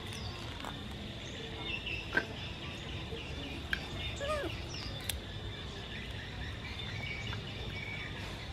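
Outdoor ambience of birds chirping over a steady high insect drone, with a few sharp clicks, the loudest about two seconds in.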